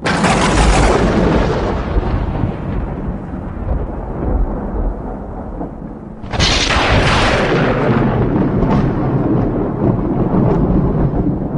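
Thunderstorm sound effect: steady rain with rolling thunder, a thunderclap breaking at the start and another about six seconds in, each dying away into a low rumble.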